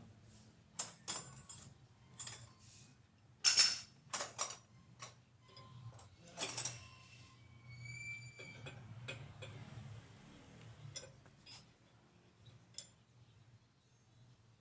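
Metal hand tools clinking and tapping against car parts in a series of sharp separate clinks, the loudest about three and a half seconds in, with a short metallic ring around eight seconds in. A low steady hum runs underneath.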